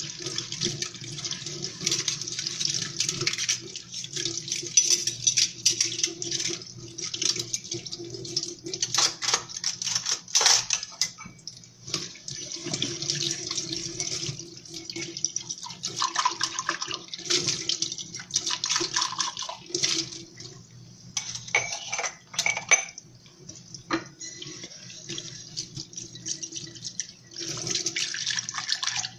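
Washing dishes at a kitchen sink: tap water running and splashing, interrupted here and there, with frequent clinks and knocks of dishes and cutlery.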